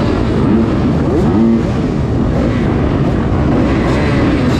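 Motocross dirt bike engine revving hard, its pitch rising and falling several times over a steady rush of noise.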